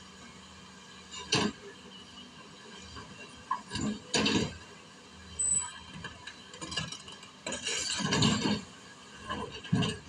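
Excavator at work loading rock: a steady engine hum under a series of clanks and knocks of stone on steel, loudest about four seconds in and again around eight seconds.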